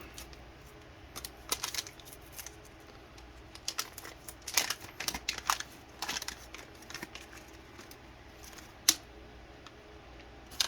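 Packaging being opened and handled: intermittent crinkling, rustling and light clicks, with one sharp click about nine seconds in.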